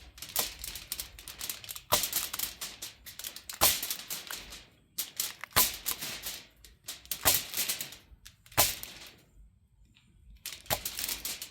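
Knife chopping an onion on a cutting board: quick runs of sharp chops with short pauses between them.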